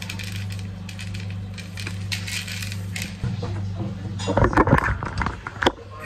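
Hands mixing dry breadcrumb and seed ground bait in a plastic tub: a grainy rustling and crunching of crumbs. From about four seconds in, louder irregular knocks and rustles follow. A steady low hum runs underneath.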